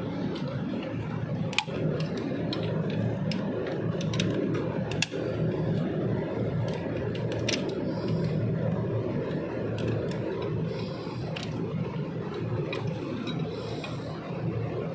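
Scattered sharp clicks and taps of hand tools on metal fittings, over a steady low background hum.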